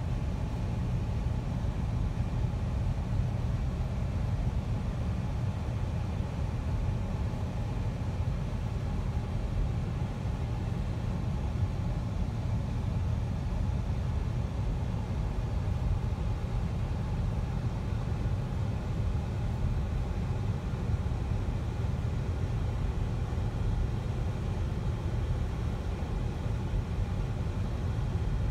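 Steady low rumble of a truck driving, heard from inside the cab: engine and road noise.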